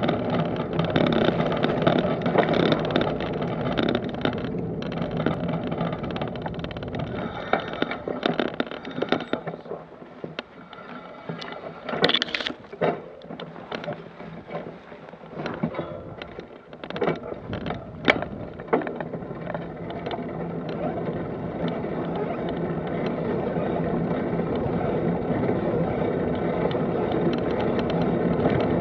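Rolling noise of a ride along a gravel track and then a paved lane: a steady rumble with rattles, easing off for a few seconds in the middle where a string of sharp clicks and knocks stands out, then building up again as the ride picks up.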